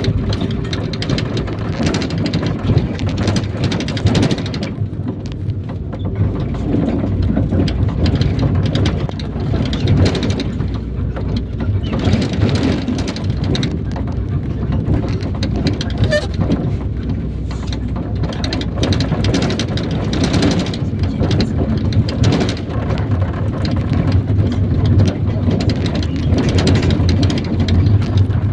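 IVECO Daily bus on the move, heard from inside: steady engine and road rumble with frequent knocks and rattles from the body.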